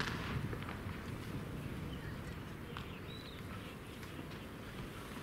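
Open-air ballpark background: a steady low rumble with a few faint ticks, and a brief high bird chirp about three seconds in.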